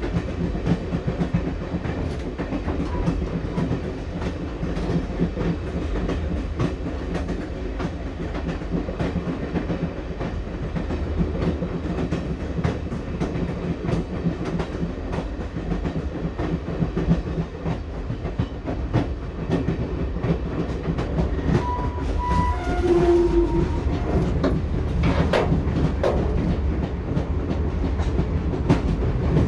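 Passenger train in motion: steel wheels clattering over the rail joints over a steady low rumble, heard from inside the carriage. A few short tones sound about two-thirds of the way through.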